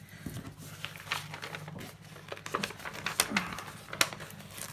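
Paper sticker sheets rustling and crinkling as they are handled and shifted on a desk, with a string of small taps and clicks, two sharper ones about three and four seconds in.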